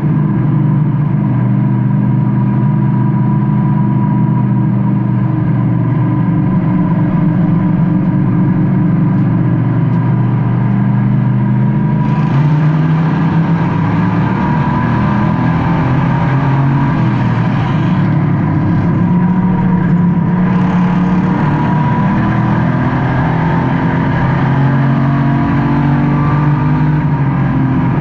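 Race car engine heard from inside the car, running hard under racing load, its pitch rising and falling as the driver lifts and gets back on the throttle.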